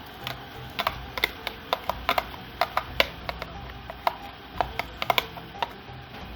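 Irregular sharp clicks and taps of kitchen utensils, metal or glass knocking against a pot or glass as ingredients are added, about twenty in all, some in quick pairs.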